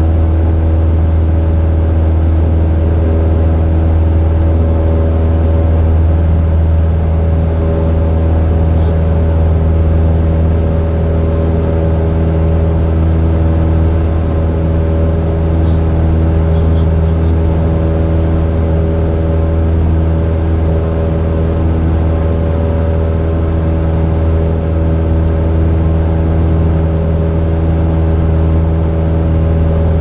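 Cessna 172's piston engine and propeller running steadily at high power in a go-around climb: a loud, even drone with a deep hum.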